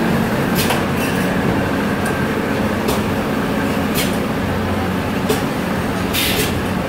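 Oil/fuel filter element assembly line machinery running with a steady low hum, punctuated by short sharp clicks and hisses at irregular intervals and a longer hiss about six seconds in.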